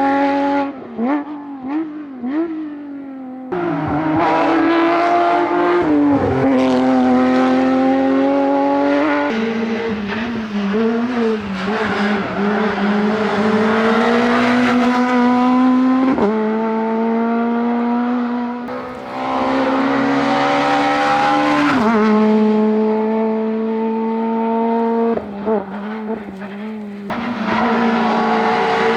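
Rally cars driven flat out on a tarmac stage. First a Porsche 997 GT3 engine revs high through gear changes. About nine seconds in, an Opel Adam R2 takes over, revving hard and climbing in pitch through each gear, with sharp drops in pitch at the shifts.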